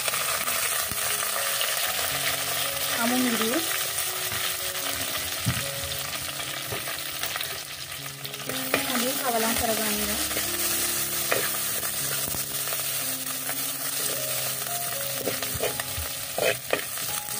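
Coconut oil sizzling steadily in a clay pot as pandan leaves, lemongrass, ginger and garlic fry in it. A few sharp knocks of a metal spoon against the pot, clustered near the end as it is stirred.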